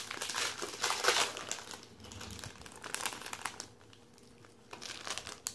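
Foil trading-card pack wrappers crinkling as they are handled and opened by hand, busiest in the first two seconds, fading away about three and a half seconds in, with a few more crinkles near the end.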